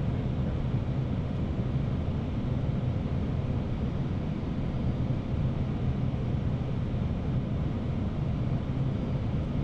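Airbus A319 cockpit noise on final approach: a steady low rumble of airflow and engines, unchanging throughout.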